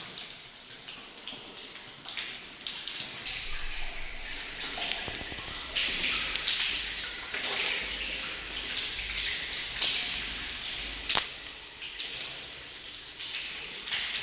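Rainwater pouring and dripping in a flooded house, splashing unevenly. A sharp knock comes about eleven seconds in.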